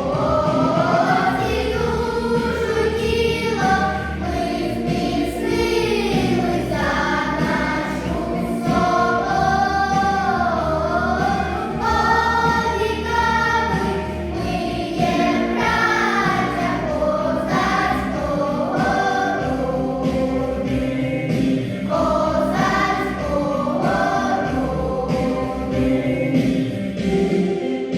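Children's choir singing a song together over an instrumental backing track with a steady beat.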